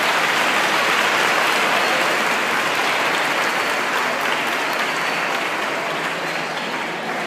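Audience applauding: dense, steady clapping that gradually dies down toward the end.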